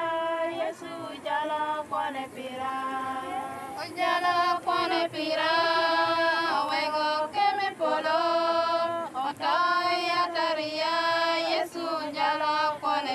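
Female voices singing a chant-like song in long held notes with short breaks between phrases.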